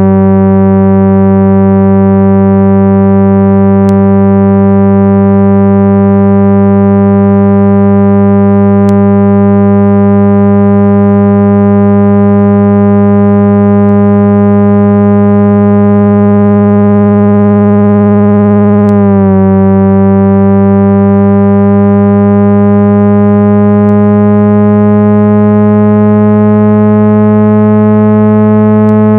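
Loud, steady electronic low-pitched tone, a 165 Hz speaker-cleaning signal meant to vibrate dust out of a phone or earbud speaker, with a buzzy stack of overtones. It wobbles briefly about two-thirds of the way through, then holds steady again.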